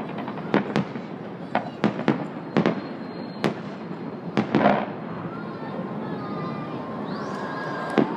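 Fireworks display: sharp bangs of bursting shells at irregular intervals, about a dozen in the first five seconds, then a quieter stretch with fainter crackling.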